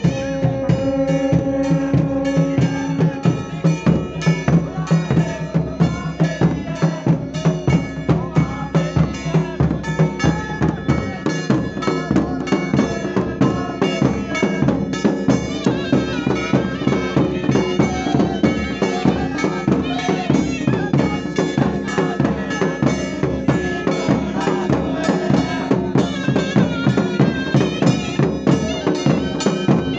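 Live Pahadi folk band music: a reedy wind instrument plays a sustained, nasal melody over steady drum beats at about two to three a second.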